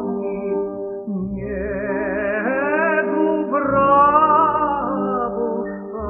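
A classical tenor voice singing a slow Russian romance with wide vibrato over held instrumental accompaniment. The voice climbs in pitch twice in the middle of the phrase.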